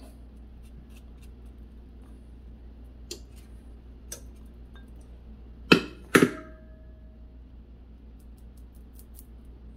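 A metal spoon clinking against a bowl: a few light clicks, then two sharp taps about half a second apart, the second leaving a short ring.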